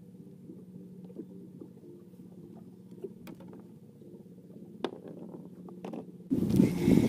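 Faint low hum with a few small clicks and taps from handling the fishing rods and a caught giant freshwater prawn. Near the end it switches suddenly to loud wind buffeting the microphone with the boat under way.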